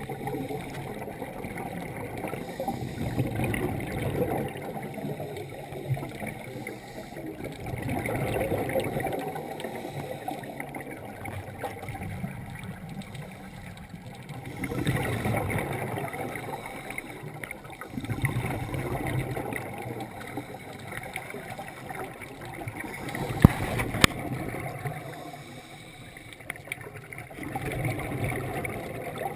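Scuba divers breathing through their regulators underwater, heard through the camera's underwater housing: exhaled bubbles rise in swells every few seconds over a steady hiss. Two sharp clicks come a little past three-quarters of the way through.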